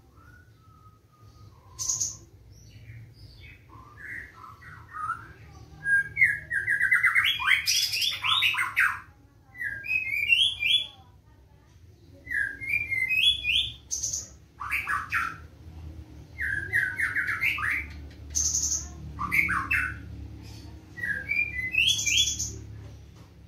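Caged white-rumped shama of the black-tailed form singing loud, fast phrases, a new burst every second or two, each made of rapid runs of repeated notes with some very high sharp notes in between.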